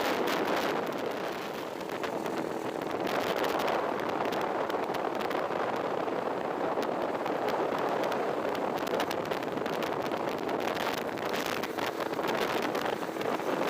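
Motorcycle on the move: steady wind rush over the microphone with the ride's engine and road noise underneath.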